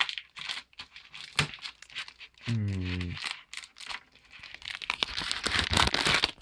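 Plastic shrink-wrap crinkling and tearing as it is worked off a CD jewel case, with sharp clicks and crackles of the plastic and case being handled, the crinkling growing denser near the end. A short low hum sounds for under a second about two and a half seconds in.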